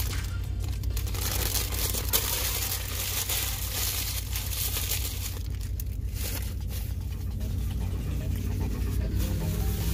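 Paper burger wrapper crinkling and rustling in irregular strokes while a bite of burger is chewed, over a steady low hum.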